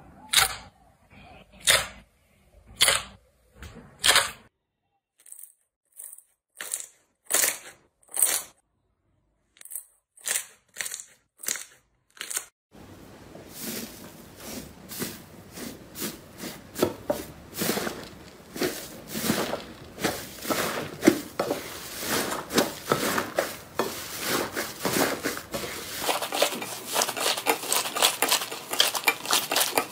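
Hands working slime: a glossy blue slime gives short, sharp snaps about once a second with quiet between. About thirteen seconds in, a crumbly orange 'tofu dregs' slime is pressed and kneaded with dense, continuous crackling and crunching.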